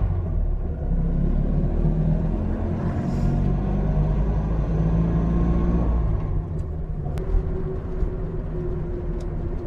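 Polski Fiat 126p's air-cooled two-cylinder engine droning under load as the car drives off, heard from inside the cabin. About six seconds in, the engine note drops and eases off, and a few sharp clicks follow near the end.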